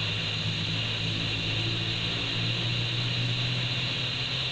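Steady receiver hiss from the speaker of a Kenwood TM-261A 2 m FM transceiver, with a low hum under it. The antenna lead is held directly on the bandpass coil, and the noise shows the faulty receiver picking up with some sensitivity there.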